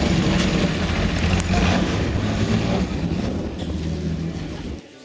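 Jaguar D-Type's straight-six engine running steadily as the car drives across wet pavement. Tyre spray hisses along under it. The sound fades a little and then cuts off abruptly near the end.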